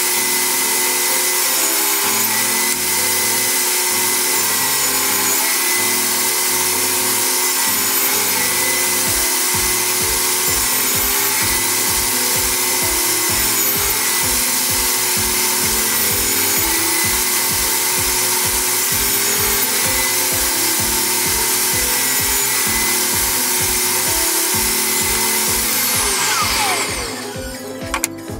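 Power tool running steadily as it works wood, under background music with a steady beat. Near the end it is switched off and winds down with a falling whine.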